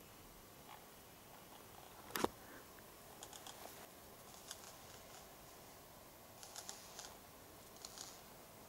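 A common nighthawk on the ground shuffling and spreading its wings in a threat display. It makes faint clusters of quick ticks and rustles, with one sharp click about two seconds in.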